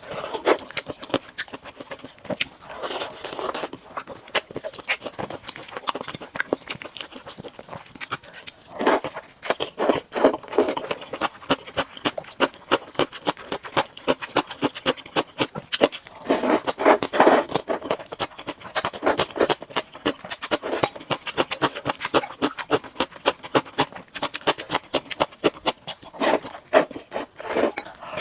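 Close-miked eating: rapid wet chewing, smacking and slurping of luosifen rice noodles and fried chicken, coming in bursts.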